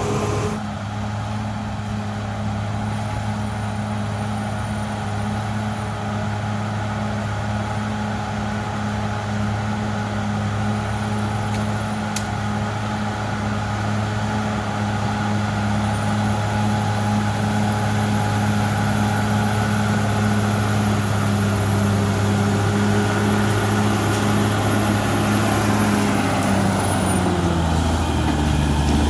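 Cat D6R XL bulldozer's diesel engine running at a steady speed, with a faint high whine coming and going. The engine note drops slightly near the end.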